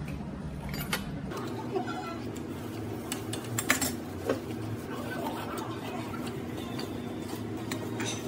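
Metal spoon and chopsticks clinking against a heavy soup pot and small dishes while eating: a handful of separate short clinks, the loudest cluster a little under four seconds in, over a steady low background hum.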